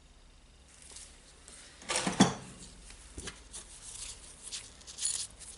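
Small metal parts and hand tools clinking and clattering as they are handled on a workbench, loudest in a short clatter about two seconds in, then scattered lighter clicks.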